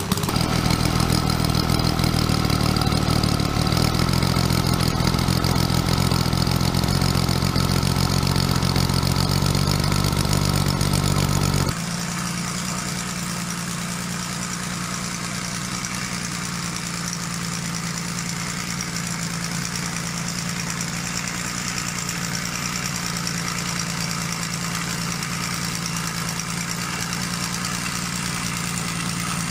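Homemade 60 cc three-cylinder model ship's diesel engine running steadily. About 12 seconds in, the sound changes suddenly to a quieter run with less low rumble.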